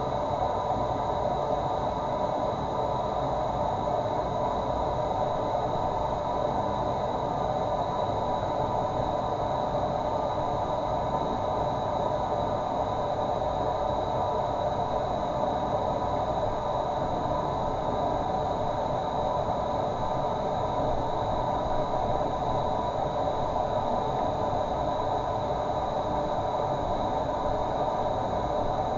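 Running water, a steady unbroken rushing with no changes.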